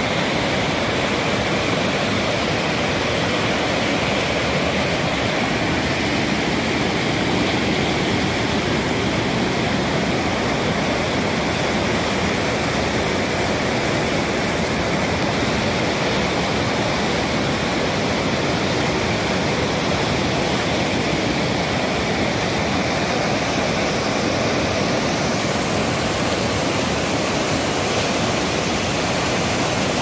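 Loud, steady rush of whitewater in shallow river rapids pouring over a rocky bed.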